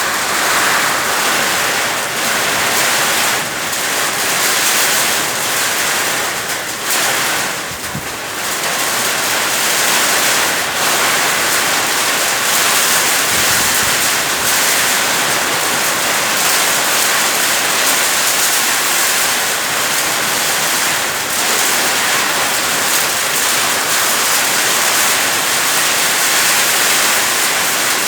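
Heavy rain pouring down in gusting wind: a dense, steady rush of noise that dips briefly about eight seconds in.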